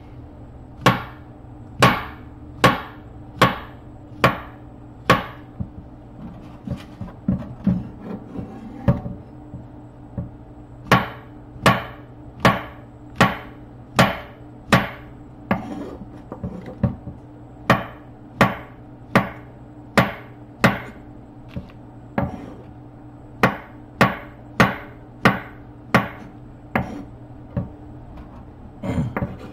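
A kitchen knife slicing cremini mushrooms on a wooden cutting board, the blade knocking the board in a steady rhythm about once every three-quarters of a second, broken by a few short pauses. A steady low hum runs underneath.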